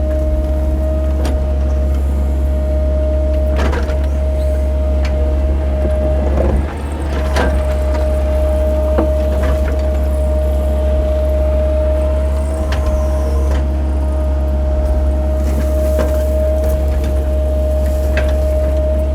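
Cat 308 mini excavator's diesel engine running steadily with a constant high whine over it, with scattered knocks and clanks as the machine works. The whine and the level dip briefly about six and a half seconds in.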